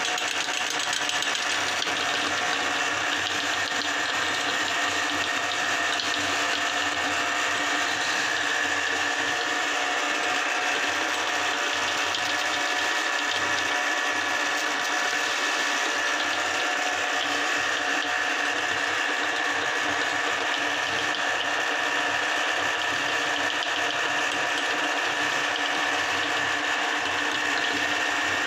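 Electric meat grinder running without a break, its auger grinding puffed-rice cake into crumbs: a steady motor whine over a continuous rattling grind.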